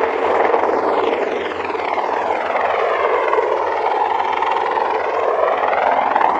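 CH-53E Super Stallion heavy-lift helicopter, with three turbine engines, running at lift-off power as it rises and climbs away: a loud, steady rotor and engine noise whose tone slowly sweeps and wavers.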